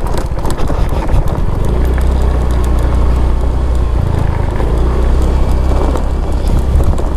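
Motorcycle engine running while riding over a loose gravel road, with stones clicking and crunching under the tyres. The engine note shifts about two seconds in and again about four seconds in.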